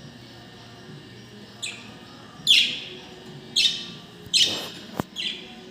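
Pet budgerigar giving five short, loud chirping calls, each a quick falling sweep in pitch, roughly a second apart. There is a single sharp click near the end.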